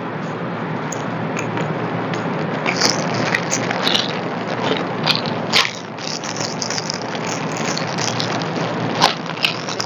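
Plastic courier mailer bag being pulled and torn open by hand: irregular crinkling and crackling with several sharp ripping snaps, over a steady hiss.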